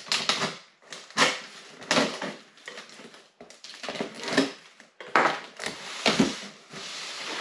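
Cardboard shipping box being opened: a knife slitting the packing tape and the box flaps and sides scraped and knocked as it is handled. About eight sharp, irregular rasps and knocks, the loudest about a second in and again around five to six seconds in.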